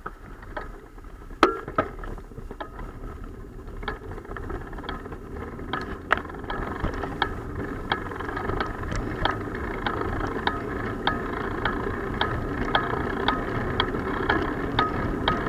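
Bicycle in motion: steady wind and tyre noise that grows louder as the bike gathers speed. A regular light ticking comes in about twice a second, and there are a couple of sharp knocks near the start.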